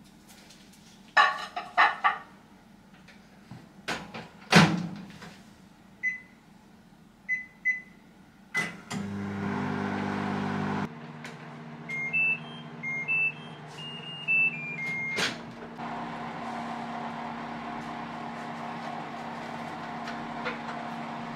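Countertop microwave oven being worked to thaw frozen rice: a few knocks and a door clunk, several single keypad beeps, a brief hum, a short tune of beeps near the middle, then the oven's steady running hum for the last five seconds or so.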